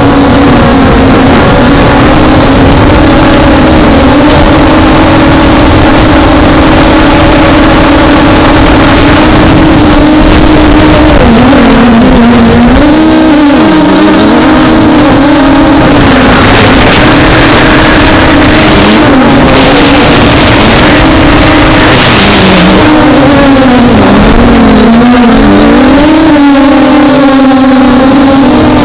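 MJX Bugs 5W quadcopter's brushless motors and propellers humming, the pitch dipping and recovering over and over as it corrects against gusts in strong wind. Wind rumbles and buffets the microphone.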